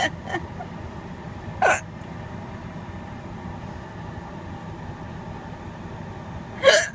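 A woman hiccuping twice, about five seconds apart, each a short sharp hiccup that drops in pitch. Her hiccups come from laughing hard. A steady low car-cabin hum runs underneath.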